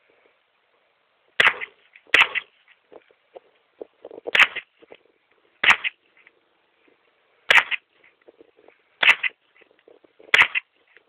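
.22 LR firearm fired seven times in a steady string, one shot every one to two seconds.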